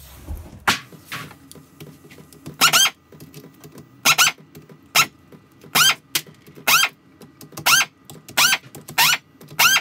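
Bolts on Yamaha R1 camshaft bearing caps squealing as they are unscrewed by hand, about ten short squeaks, each one a turn of the tool.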